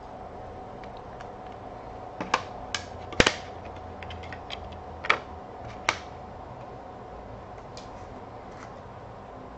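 Crisp plastic clicks and taps from a trading card in a soft sleeve being handled and slid into a rigid plastic top loader: a handful of sharp clicks between about two and six seconds in, the loudest just after three seconds, over a faint steady hum.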